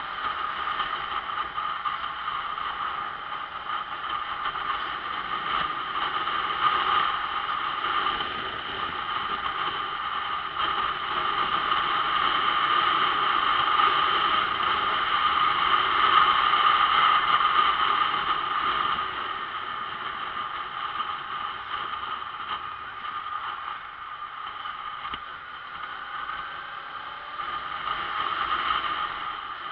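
On-board sound of a motorcycle being ridden: the engine running under a steady rush of wind and road noise, growing louder for several seconds around the middle.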